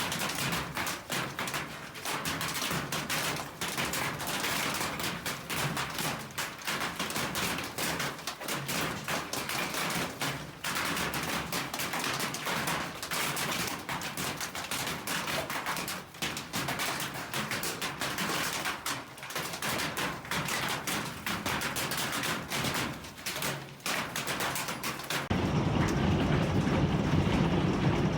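Hailstones pelting a surface in a dense, irregular clatter of rapid hits. About 25 seconds in it turns into a steadier, louder rush of heavy rain with a low rumble.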